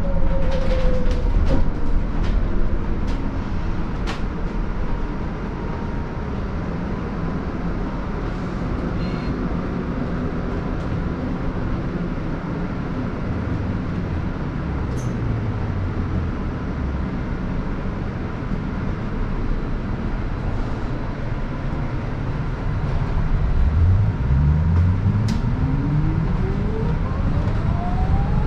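Cabin noise inside a Scania Citywide BEV battery-electric bus on the move: steady road and tyre rumble with a few light rattles. A whine from the electric drive falls away at the start and rises steeply in pitch near the end as the bus speeds up.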